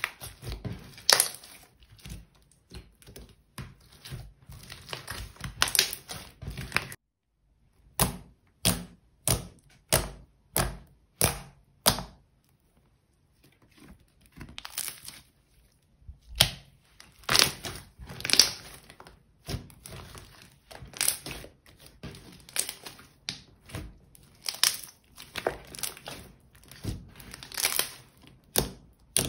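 Thick slime being kneaded and squeezed by hand on a table, giving a run of sticky pops and crackles, about one or two a second, with two short silent breaks.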